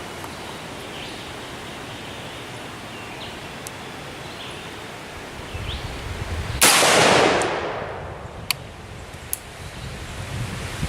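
A single shot from an M1A semi-automatic rifle in 7.62x51mm, about two-thirds of the way in, its report echoing and fading over about a second. A steady wind-like noise runs beneath, and two short sharp clicks follow the shot.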